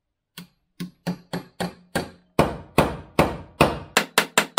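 Hammer blows driving a stainless steel sleeve onto an aluminium wheel-spacer core held in a vise, a press fit. Each strike is sharp with a short metallic ring; lighter blows at first, heavier from about halfway, then quicker, about four a second, near the end.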